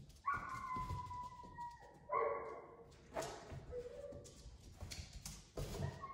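Young dog whining: one long high whine with a slight downward slide, then a shorter whine, and a brief low whimper about four seconds in, with a few light knocks in between.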